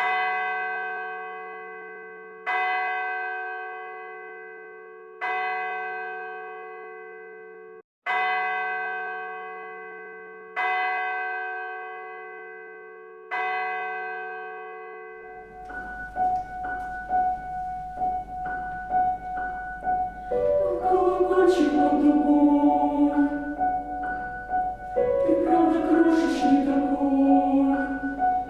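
A bell struck six times, about every two and a half seconds, each stroke ringing out and fading. Just past halfway the bell gives way to a choir singing with piano accompaniment, over a low electrical hum.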